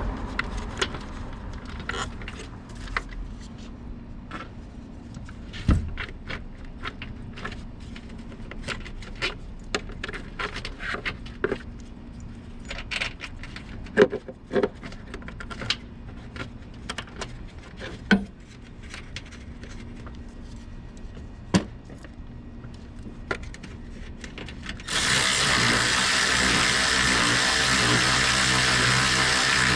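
Scattered clicks and knocks of parts and tools being handled during reassembly of the air box. Near the end, a small power tool, likely a cordless ratchet or drill, runs steadily for about five seconds and then stops.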